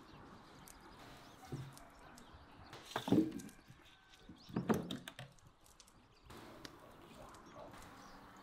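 Potato wedges tipped from a steel bowl into a metal roasting tray, landing in two bursts of thuds and knocks about a second and a half apart.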